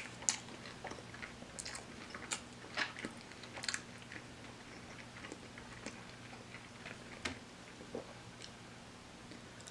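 Close-miked eating sounds of fried chicken: a crisp bite right at the start, then chewing with crunchy crackles of the fried coating. The crackles are densest over the first four seconds and grow sparser and quieter after that.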